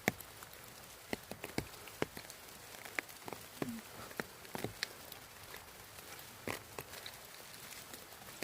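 Rain on an umbrella: irregular sharp drops tapping on the canopy over a light, steady patter of rain.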